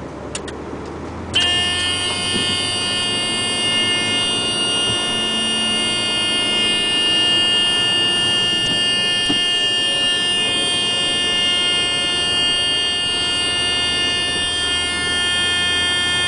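A loud, steady buzzer-like warning tone with many overtones starts suddenly about a second and a half in and holds without a break.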